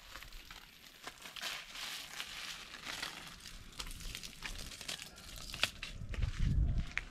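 Footsteps crunching and rustling through dry fallen leaves, in an irregular run of crackles, with a low rumble near the end.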